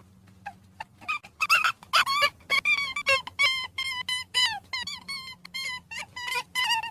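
Rabbits squeaking: a rapid run of short, high-pitched squeaks, about four a second, that thickens about a second and a half in.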